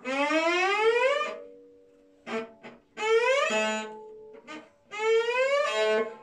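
Cello imitating a laugh: three bowed glissandi, each sliding upward over about a second, with brief sharp string sounds between the slides.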